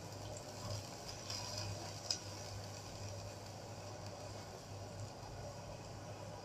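A silicone spatula stirs green chillies in water in a small frying pan, giving faint scraping and one light tick about two seconds in, over a quiet steady hum.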